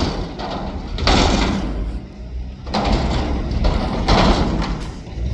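Peterbilt McNeilus front-loader garbage truck working a container, its engine rumbling steadily under repeated crashing bangs about every second and a half as the bin is emptied into the hopper.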